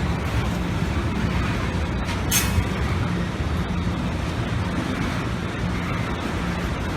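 Freight train rolling slowly past, a steady low rumble, with a short hiss about two seconds in.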